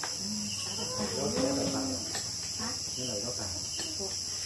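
A steady, high-pitched chorus of crickets. Short bits of a voice come through about a second in, and again around three seconds.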